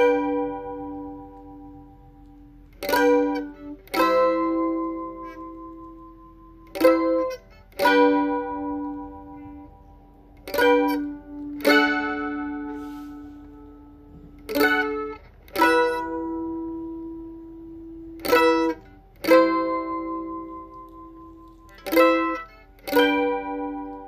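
Mandolin played slowly: separate strummed chords with a sharp pick attack, each left to ring out and fade before the next.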